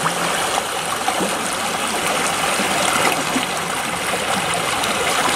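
Shallow creek water flowing over a pebbly bed, a steady rushing trickle.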